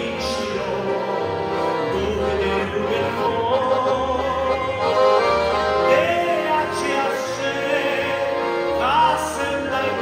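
A man singing a Romanian hymn with vibrato on held notes, accompanying himself on a piano accordion whose bass notes pulse steadily under the voice.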